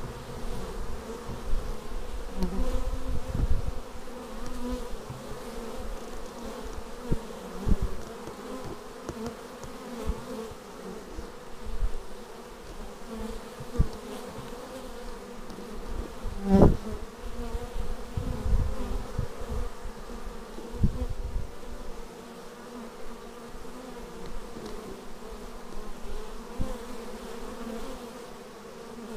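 Honeybees buzzing at a hive entrance: a steady hum of many bees, with single bees buzzing loudly as they fly close past, the loudest pass about halfway through.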